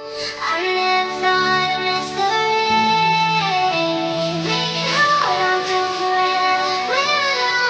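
Background music: a song with a singing voice and instruments.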